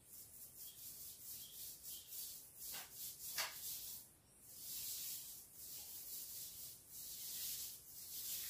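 Paintbrush strokes rubbing over a door frame as paint is brushed on, a run of short scratchy strokes with a couple of louder scrapes about three seconds in.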